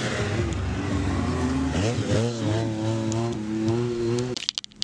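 A vehicle engine running, then revving up about halfway through and holding high revs with a slightly wavering pitch, before it cuts off abruptly near the end.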